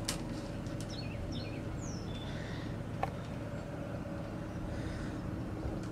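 Small birds chirping in short falling calls, mostly in the first couple of seconds, over a steady low mechanical hum. A few light clicks come as wires are handled.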